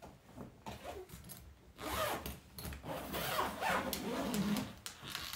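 Zipper on a hardshell suitcase being pulled along the case, a continuous rasping run from about two seconds in after some quieter handling noises. It is the case's expansion zipper, which does not open the case.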